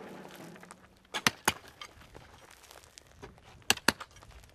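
Pickaxe striking dry, stony earth: sharp, loud blows, a cluster of them a little after one second and two more near the end, as the ground is broken up by hand.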